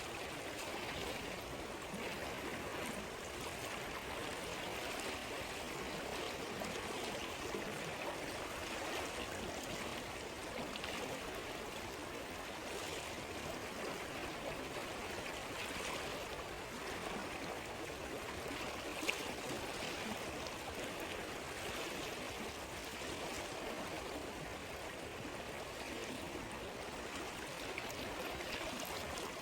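A river or stream flowing steadily, a continuous even rush of water. A few faint crackles sit in it, with one sharper pop about two-thirds of the way through, likely from the campfire.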